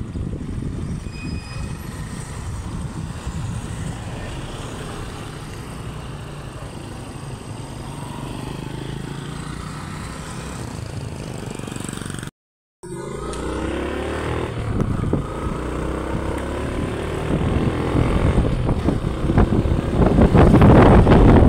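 Motorcycle ride: a low steady engine and road rumble, then, after a brief dropout about halfway through, the engine note rises as the bike speeds up. Near the end, loud wind buffeting on the microphone covers it.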